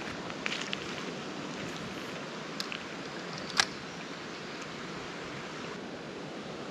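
Steady rush of creek water running over a rocky bed, with a few faint clicks and one sharper click about three and a half seconds in.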